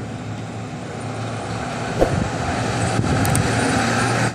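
Motorcycle riding along a road: a steady low engine hum under constant wind and road noise, with a brief knock about two seconds in.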